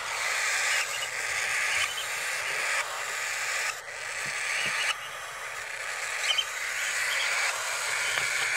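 Baby cockatiels giving harsh, hissing begging calls, repeated in stretches of about a second that swell and break off, with a few short high chirps mixed in.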